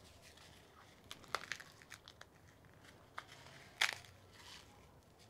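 Toasted dried guajillo chiles being broken apart by hand into a blender jar: brittle, light crackling and snapping in scattered bursts, with the sharpest snap about four seconds in.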